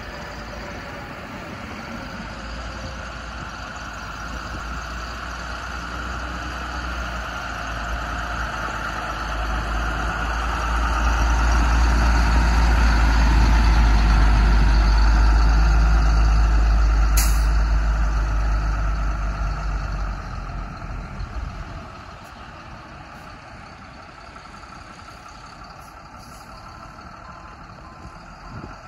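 2007 Freightliner M2 reefer truck's diesel engine and tyres driving past on gravel: the sound builds as it approaches, peaks as it goes by, then fades as it pulls away. A single brief sharp click just after it passes.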